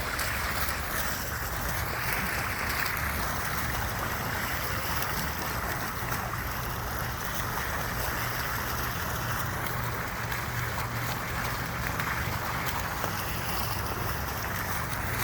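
Steady, unbroken rushing white noise, strongest in the upper-middle range, with a low hum underneath.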